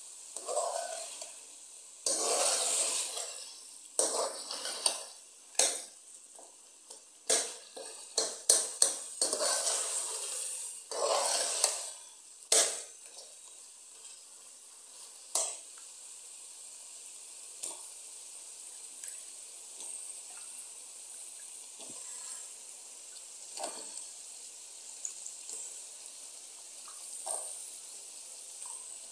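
A utensil stirring chicken pieces in a pan, with repeated sharp clicks and scrapes against the pan over roughly the first dozen seconds. After that a steady soft hiss continues, broken by only an occasional click.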